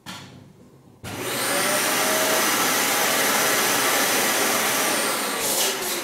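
Dyson Cinetic Big Ball upright vacuum cleaner switched on with a short knock: its motor starts about a second in with a brief rising whine, runs loud and steady, then winds down in pitch near the end.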